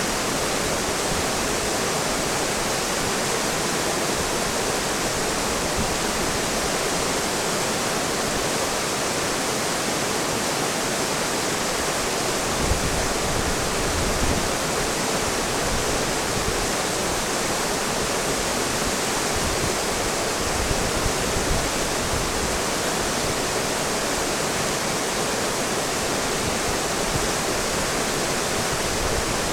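Whitewater rushing steadily through a river rapid, with a few brief low bumps near the middle and about two-thirds of the way through.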